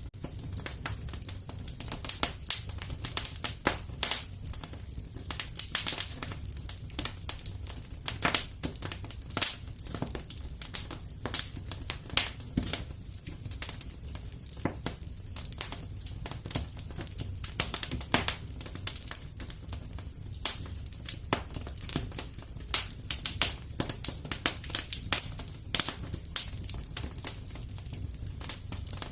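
Wood fire in a fireplace crackling: frequent irregular pops and snaps over a steady low rumble of the flames.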